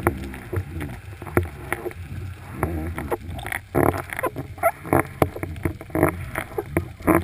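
Underwater audio from a GoPro in its waterproof housing hanging on a line: a muffled low rumble with irregular knocks and clunks, several louder ones in the second half.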